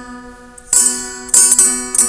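Instrumental guitar music of plucked notes, each ringing and dying away. A note fades out over the first half second, then new notes are plucked about 0.7 s in and again around a second and a half.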